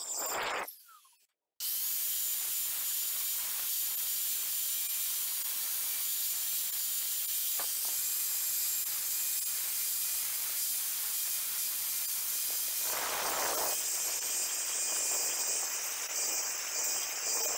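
Milwaukee angle grinder with a diamond blade grinding away the edge of a circular cut-out in porcelain tile, a steady high-pitched hiss. The sound drops out for about a second near the start, then runs on steadily.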